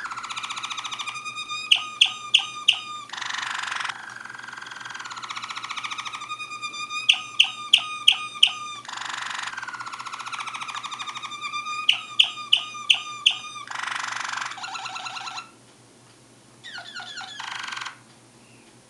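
Waterslager (Malinois) canary singing. The same run of phrases comes three times: a held whistle sliding down in pitch, then a burst of loud, sharp, evenly spaced notes. The song breaks off about fifteen seconds in, with one short phrase near the end.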